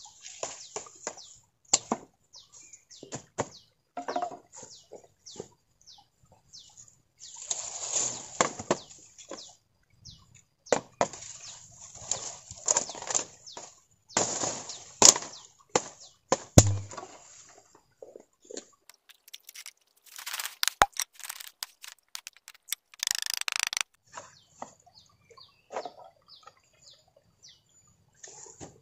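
Firewood being gathered in dense brush: dry sticks and branches cracking, snapping and knocking, with leaves and grass rustling between them. The loudest cracks come around the middle.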